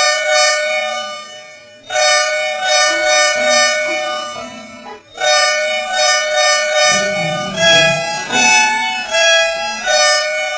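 Volvo bus horn sound effect, digitally altered, sounding a two-tone chord in three long blasts. In the last blast the pitch jumps up and down in quick steps.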